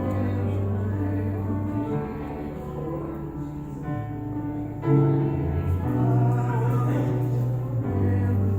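Slow church music: sustained keyboard chords over held bass notes, changing every second or two, with voices singing along.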